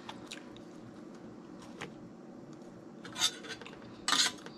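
A metal spoon scraping and clinking in an escargot dish: faint clicks, a short scrape about three seconds in and a louder scrape near the end.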